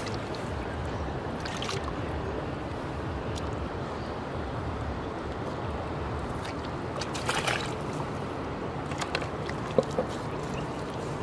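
Water splashing and sloshing in a plastic tub as hands work in it, a few short splashes with a louder cluster about seven seconds in and a sharp knock near the end, over a steady low rumble.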